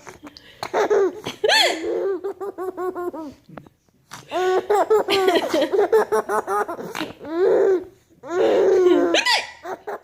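Baby boy laughing in repeated bursts of high-pitched giggles and belly laughs, set off by his mother's hiccups. The laughter breaks off briefly twice, a little before the middle and again near the end.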